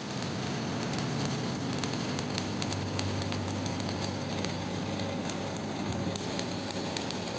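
Arc welding a hardfacing bead: the arc's steady crackle, with a low hum underneath and scattered sharp ticks, starts right at the beginning and runs on evenly.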